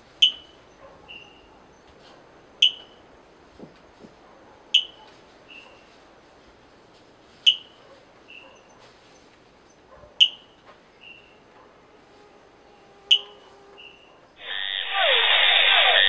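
Rock-dwelling frog (Pristimantis rupicola) calling: six sharp chirps about every two and a half seconds, each followed by a fainter short note. Near the end a much louder, fast-pulsed call of the Picos treefrog (Dendropsophus soaresi) cuts in.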